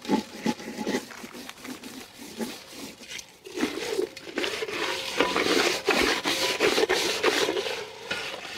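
Hands scrubbing a large raw fish with coarse salt: gritty rubbing and scraping of salt crystals over the skin and flesh and against the basin, in quick uneven strokes that grow louder and denser about three and a half seconds in.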